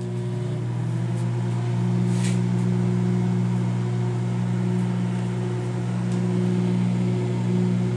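Hamilton Beach microwave oven running a heating cycle with a steady low hum.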